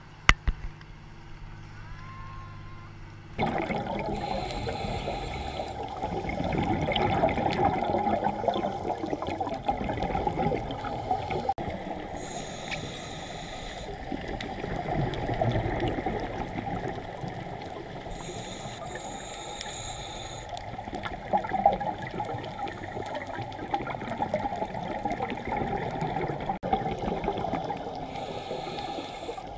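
A boat engine hums steadily for the first three seconds. Then the sound switches abruptly to muffled underwater noise from a camera in a dive housing: a constant crackling, bubbly water sound. Over it, a scuba regulator hisses with the diver's breaths in bursts roughly every seven seconds.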